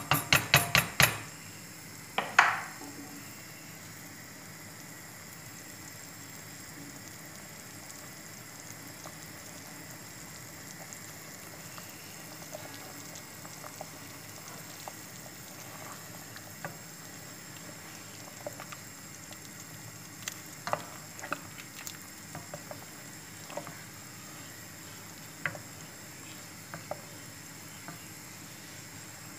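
A stainless steel pot of beef, onions and tomato paste boiling in water: a steady hiss with scattered small bubbling pops. A wooden spoon knocks against the pot in a quick run at the start and once more about two seconds in.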